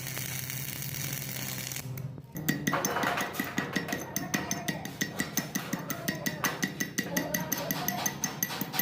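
A steady welding-arc sizzle for about two seconds, then background music with a steady, fast beat takes over.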